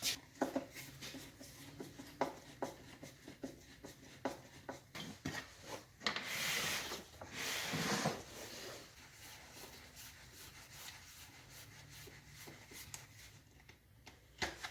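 Screwdriver turning Phillips head screws into a pancake air compressor's head: small irregular clicks and scraping of metal and plastic, with a louder scraping stretch about six to eight seconds in.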